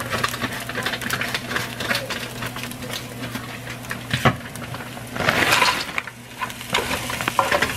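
Shredded rotisserie chicken and onions sizzling and crackling in a hot pot, over a steady low hum. About five seconds in, frozen mixed vegetables pour from a plastic bag into the pot in a brief noisy rush.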